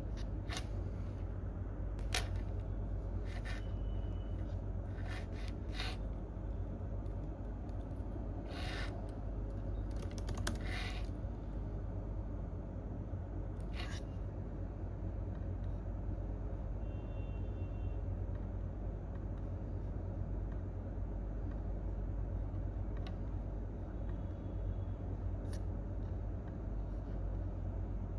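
Scattered, unhurried computer keyboard and mouse clicks over a steady low room hum; the clicks come every second or two in the first half, with a quick cluster of several, then thin out to a few faint ticks.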